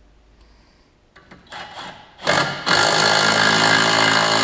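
Cordless power tool spinning in the belt tool's bolt on a Can-Am Maverick X3's secondary clutch, which spreads the clutch open to take a new drive belt. After a few light knocks, it gives a short blip about halfway in, then runs steadily and loudly.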